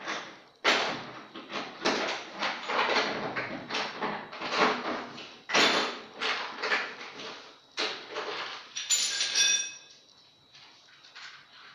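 Cloth wiping and rubbing the glass panels of a shower enclosure in repeated strokes, with a brief high squeak about nine seconds in; the strokes stop about ten seconds in and it goes quiet.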